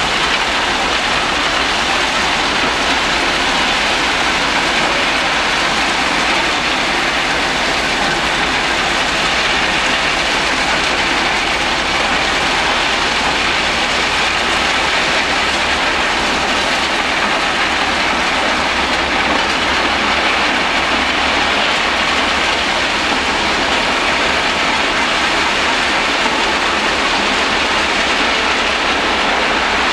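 Crushed-stone ballast pouring out of a railway hopper wagon's discharge chutes onto the track as the wagon creeps along, a steady unbroken rushing rattle.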